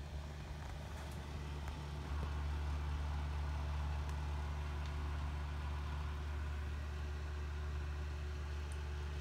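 Steady low mechanical hum that runs without change, with no other clear sound.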